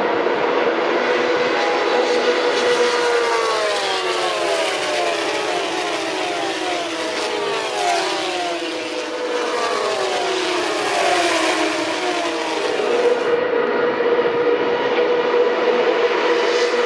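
Naturally aspirated V6 engines of FIA Formula 3 race cars at high revs. A held, steady engine note gives way in the middle to several cars' engine notes sliding down in pitch one after another, then a steady high note returns near the end.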